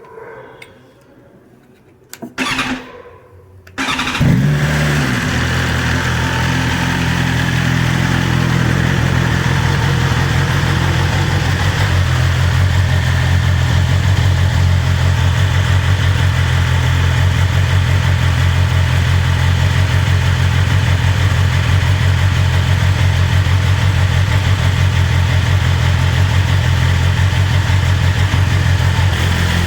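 BMW S1000RR's inline four-cylinder engine on its stock exhaust being started. The starter cranks for about a second and a half, the engine catches about four seconds in with a brief rev flare, then it settles into a steady idle.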